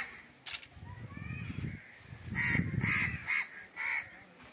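A crow cawing: four harsh caws in quick succession in the second half, with small birds chirping faintly.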